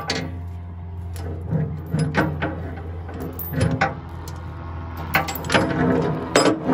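Ratchet tie-down strap being worked: irregular metallic clicks and clanks of the ratchet buckle and hardware, several of them near the end, over a steady low hum.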